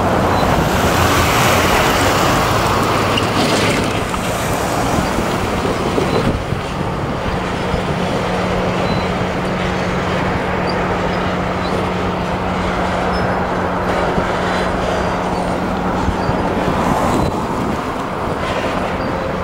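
Diesel-hauled freight train passing: the locomotive's engine running as it pulls away, then the steady rolling and rattling of open-top freight cars over the rails.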